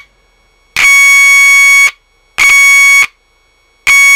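Audio signal injector's test tone amplified by an LM386 amplifier through a small loudspeaker: a loud, harsh buzzing tone that comes in three separate bursts, the first about a second long and the other two shorter, each cutting in and out abruptly.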